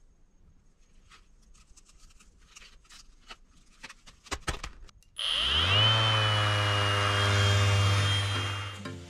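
Soft clicks and rustles as a hook-and-loop sanding disc is pressed onto a Bosch random orbital sander's pad, then about five seconds in the sander switches on, spins up and runs freely with a steady high whine before dying away near the end.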